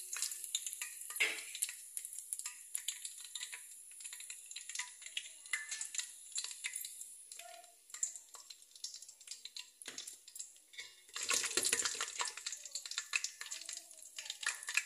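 Whole garam masala spices, bay leaf and fennel among them, sizzling and crackling in hot oil and ghee in a steel pot. The frying grows louder and busier from about eleven seconds in.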